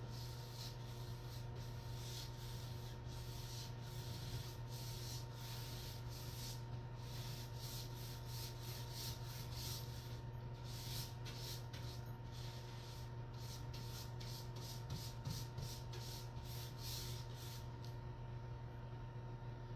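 Paint roller being worked over a wall in repeated back-and-forth strokes, a rhythmic rubbing swish about one to two strokes a second, stopping shortly before the end. A steady low electrical hum runs underneath.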